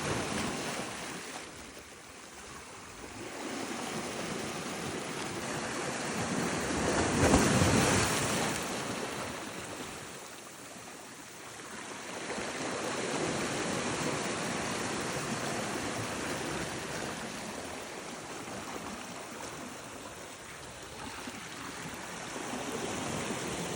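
Sea waves washing onto a beach, the surf swelling and falling back every several seconds, loudest about seven seconds in.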